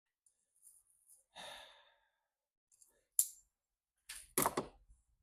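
A strained exhale, then sharp clicks and cracks from a battery hold-down clamp being forced tight. The loudest is a cluster of cracks about four seconds in, as the clamp snaps.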